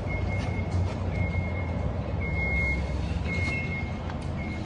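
Vehicle backup alarm beeping about once a second over the low rumble of a running engine.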